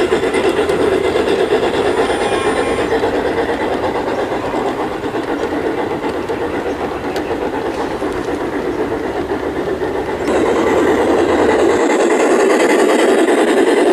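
Large-scale garden model train rolling along outdoor track: a steady rolling noise of metal wheels running on the rails. About ten seconds in the sound grows louder as a closer train takes over.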